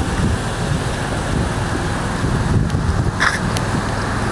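Steady low rumble of wind buffeting the microphone, mixed with vehicle or traffic noise, with a brief high-pitched squeak about three seconds in.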